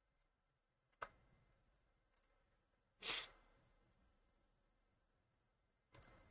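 Near silence with a few faint clicks: one about a second in, two small ticks a second later, and a pair near the end. About three seconds in there is one short breathy puff, the loudest sound.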